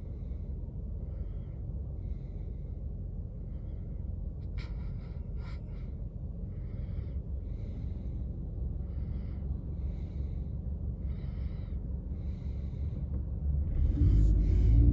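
Car engine idling while stationary, a steady low rumble, with a soft sound repeating about every 0.7 seconds and a couple of sharp clicks about five seconds in. About a second before the end the engine note rises as the car pulls away.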